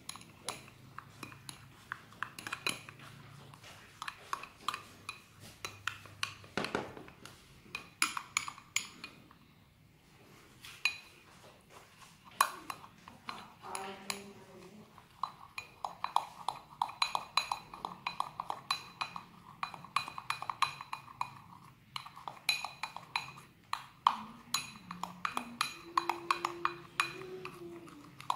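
A metal teaspoon stirs a thick cocoa and condensed-milk paste in a small glass tumbler, clinking quickly and unevenly against the glass, with a short pause about ten seconds in.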